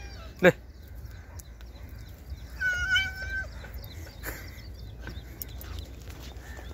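A cat meowing once, a wavering call just under a second long about two and a half seconds in. A brief loud call sounds about half a second in, and a low rumble runs underneath.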